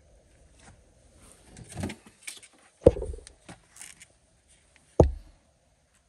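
Handling noise from a truck door latch and lock actuator assembly of plastic and metal: light clicks and rustling, with two sharp knocks about three seconds and five seconds in.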